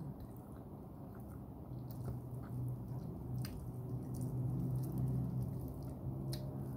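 Chewing a mouthful of chicken biryani, with wet mouth sounds and a few faint clicks of lips and tongue. A low steady hum runs underneath from about two seconds in.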